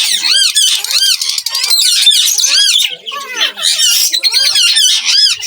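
Ringneck parakeets screeching: a rapid string of loud, arching squawks, about two to three a second, with more than one bird calling over another.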